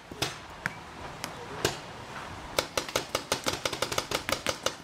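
Paintball markers firing: a few scattered shots, then from a little past the middle a rapid string of shots at about eight a second.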